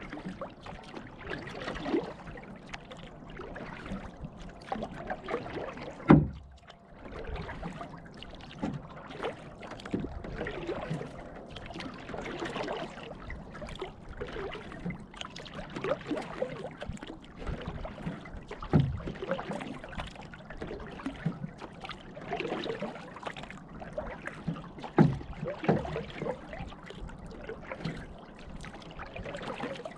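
Canoe being paddled on calm water: a continuous patter of dripping and gurgling water from the paddle and along the hull, with three louder thumps, about a fifth of the way in, past the middle and near the end.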